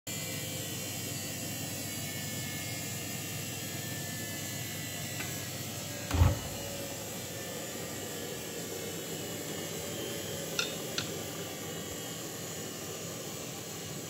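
Front-loading washing machine running, its drum turning with a steady whir and hum. A single heavy thump comes about six seconds in, and two short clicks follow a few seconds later.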